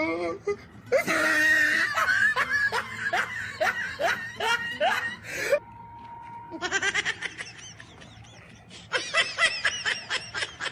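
A person laughing in two runs of short, quick bursts, with a quieter pause in the middle.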